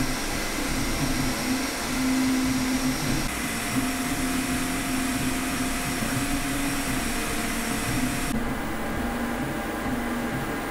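Creality K1C CoreXY 3D printer printing: short whining tones from the stepper motors change pitch every fraction of a second as the printhead moves, over the steady rush of its cooling fans.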